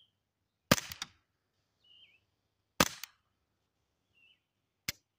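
Two suppressed .22 LR rifle shots about two seconds apart from a Ruger 10/22 fitted with a JK Armament 105 Versa x22 suppressor, firing Aguila Sniper Subsonic 60-grain rounds. Each shot is a sharp crack followed a moment later by a smaller report, loud enough to ring the ears, and the shooter finds the rounds don't seem very subsonic. A fainter sharp click comes near the end, with faint bird chirps in between.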